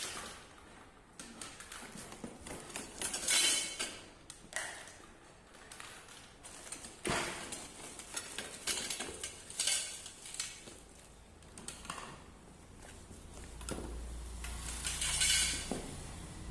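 Intermittent clinks, knocks and brief rustles as the steel rods, plastic fittings and packaging of a clothes drying stand are handled.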